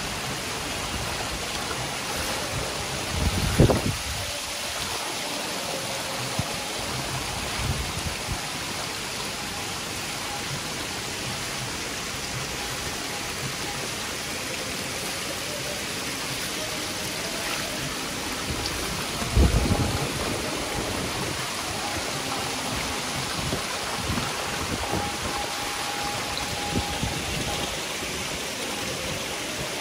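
Thousands of hybrid magur catfish thrashing and splashing at the water surface in a feeding frenzy: a steady rushing, hissing water noise. A couple of brief low thumps stand out, a few seconds in and again past the middle.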